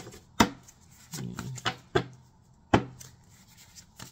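Tarot cards being shuffled and handled: a few sharp slaps and taps of the cards, with soft rubbing and sliding between.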